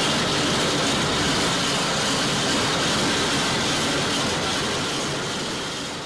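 Self-propelled harvester mowing lemon balm: the steady mechanical running of the machine and its turning reel and auger, fading away near the end.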